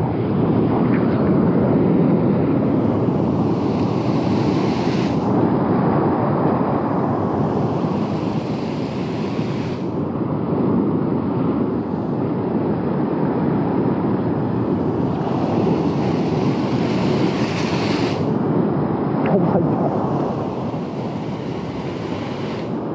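Ocean surf washing against shoreline rocks, with wind buffeting the microphone. The wash swells and eases, rising about three to five seconds in and again around fifteen to eighteen seconds in.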